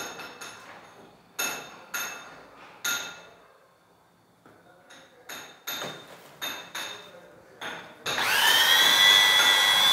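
A series of sharp knocks as tools strike the bucket. Then, about eight seconds in, an electric drill with a paddle mixer starts, its whine rising briefly as it spins up, and runs steadily while it mixes tile adhesive powder into water in the bucket.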